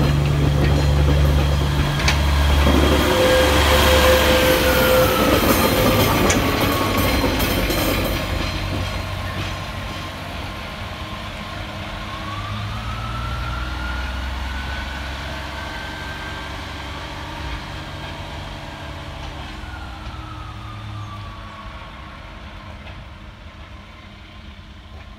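Class 142 Pacer diesel railcar 142001 running past during a shunt and moving away: diesel engine note with wheel-on-rail noise at first, and a whine that rises and falls twice. The sound fades steadily as the unit pulls away.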